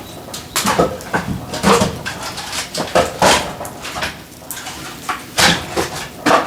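Firewood logs knocking and clattering against each other as they are handled and stacked, in irregular sharp knocks about every half second to a second.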